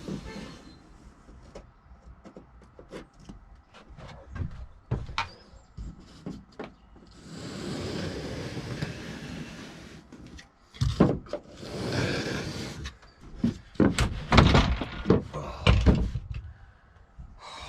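Knocks, clunks and scraping inside a small van, as wooden bed boards are handled and fitted, with a longer scrape about seven seconds in and a run of louder knocks near the end.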